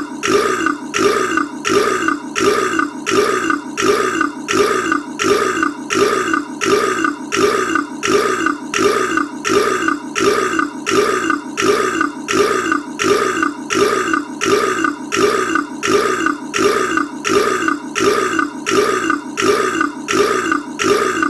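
A man's short, deep burp repeated over and over at an even pace, about one and a half times a second: one burp sound looped end to end.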